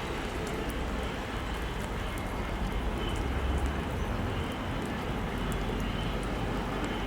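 ChME3 shunting diesel locomotive approaching, heard as a low steady rumble under a wash of noise that grows slowly louder, with faint scattered high ticks.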